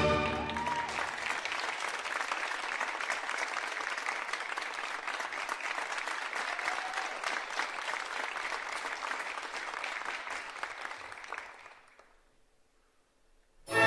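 Theatre audience applauding after a ballet variation, steady clapping that dies away about twelve seconds in.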